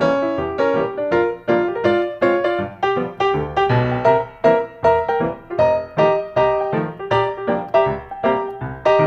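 Background piano music: a steady run of struck keyboard notes, each quickly fading, at an even pace of about two or three a second.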